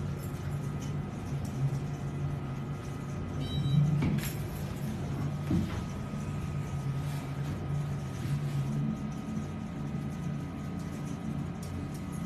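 Passenger elevator running as the car travels up: a steady low hum with a faint constant whine above it.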